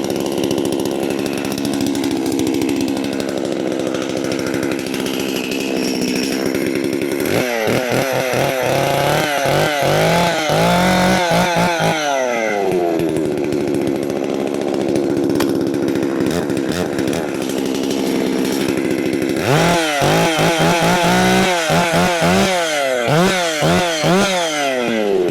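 Holzfforma G660 Pro, a clone of the Stihl 660, its big two-stroke chainsaw engine running on its first start: it idles, then is revved in a run of quick throttle blips, pitch climbing and dropping, about a third of the way in, and again in a second run near the end.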